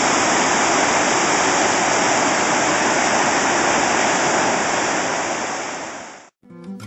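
Water discharging from a dam's outlet tunnels into the basin below, a steady heavy rush of churning whitewater. It fades out near the end, and acoustic guitar music begins.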